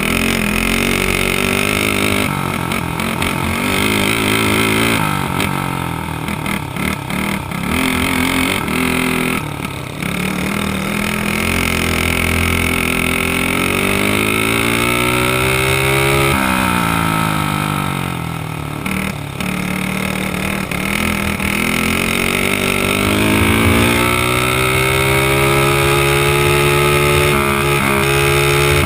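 Dirt kart engine heard on board at racing speed, its pitch climbing as the kart accelerates and dropping sharply when it lifts off, several times over.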